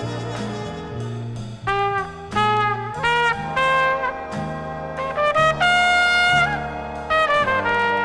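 Big band instrumental from a 1960s LP: a bass line under the band, then loud, punchy brass phrases break in about two seconds in, with a trumpet holding one long high note near the middle.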